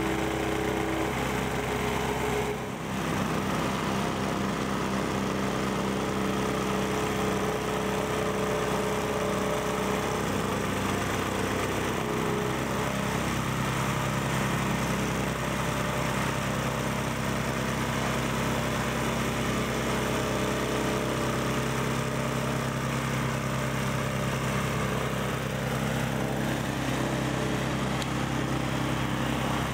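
Vibratory plate compactor running steadily as it is worked over gravel, with a wheeled excavator's diesel engine running alongside; the deeper engine note grows stronger about halfway through.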